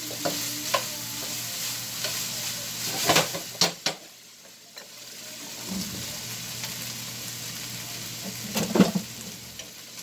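Diced meat sizzling as it fries in a frying pan, stirred with a spoon that scrapes and knocks against the pan. The knocks come in two clusters, about three seconds in and near the end, the loudest near the end.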